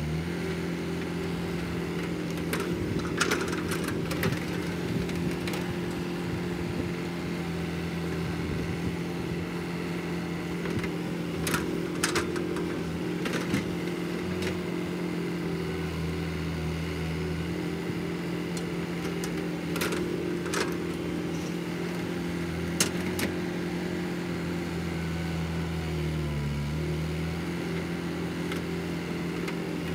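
Caterpillar 312 hydraulic excavator's diesel engine running steadily as it digs and loads a dump truck, its pitch dipping briefly near the end. Scattered sharp clanks of the bucket and stones sound over it.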